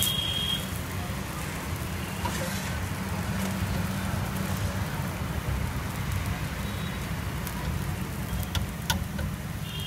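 Steady sizzling hiss of a dosa cooking on a hot flat griddle, over a low steady rumble, with a few faint clicks from the metal spatula near the end.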